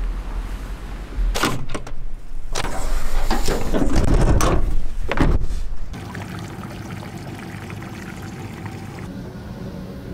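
Canvas and fabric rustling and swishing in loud irregular bursts as a rooftop tent is folded shut and its cover pulled over. About six seconds in this gives way to a quieter, steady hum: an outboard motor idling.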